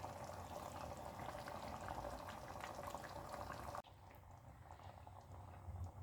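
Thick sardine masala curry bubbling and popping at a simmer in the pan; the bubbling cuts off suddenly about four seconds in, leaving only a faint low hum.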